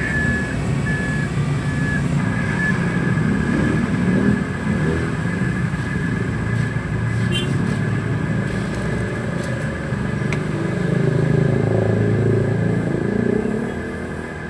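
Remote-control toy construction vehicle running: a steady high whine over a rougher low engine-like sound that swells and fades. In the first few seconds the whine comes in short pulses before it holds steady.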